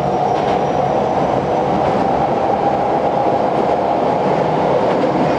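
Hokushin Kyuko subway train running through a tunnel just after leaving the station, heard from inside the rear cab: a loud, steady running noise of wheels and motors with a few faint clicks.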